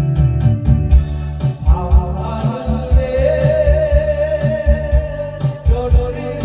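Trot song with a steady drum beat and bass; from about two seconds in, a voice sings a long held line with wide vibrato.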